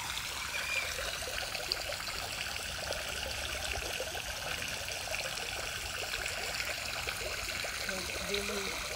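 Small pond fountain jet splashing steadily back onto the water surface, a continuous trickling splash.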